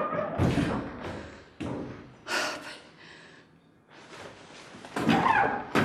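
A person's breathing sounds: several sharp breaths and sighs, then a short voiced sound near the end.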